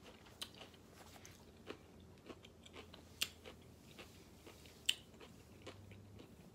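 A person chewing food close to the microphone: soft wet mouth sounds and small clicks, with two sharper clicks about three and five seconds in.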